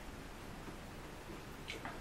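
Faint eating sounds of a person chewing fries, over low room hiss, with a couple of small clicks near the end.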